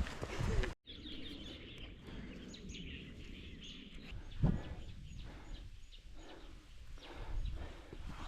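Small birds chirping repeatedly over a steady outdoor hiss, with a single dull thump about four and a half seconds in.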